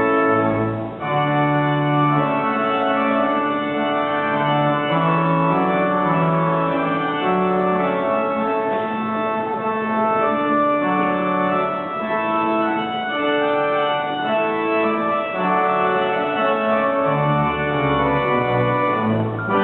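Pipe organ playing a processional of full, sustained chords over a slowly moving bass line, with a brief break between chords about a second in.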